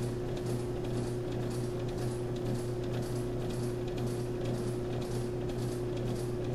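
Ammco brake lathe running with a brake drum turning on its arbor: a steady motor hum with a light ticking about twice a second.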